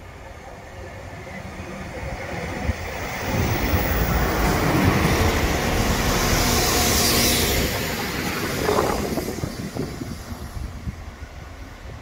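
Northern Class 195 diesel multiple unit passing through the station at speed. The engine rumble and wheel-on-rail noise build as it approaches, are loudest with a rushing hiss as the carriages go by, then fade away.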